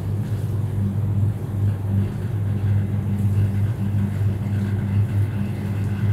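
A steady low machine hum with a deep pitched drone that swells and fades slightly, like a motor running.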